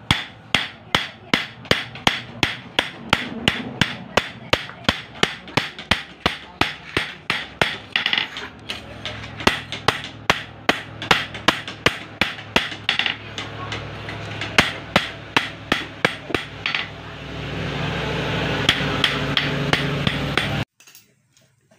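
Hand hammer forging hot steel from a motorcycle brake disc on a steel post anvil: a long run of ringing metal-on-metal blows at a steady two to three a second. Near the end a steady noise swells under the blows, then the sound cuts off abruptly.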